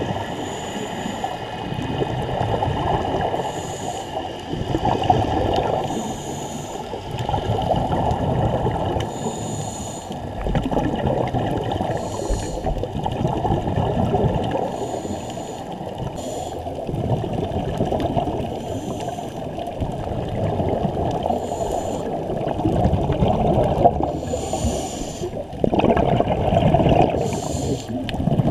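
Scuba breathing underwater through a regulator: a steady gurgle of exhaled bubbles that swells and fades every few seconds, with a short hiss about every two to three seconds.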